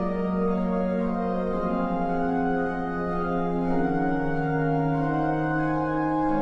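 Background music of slow, sustained chords that shift every second or two.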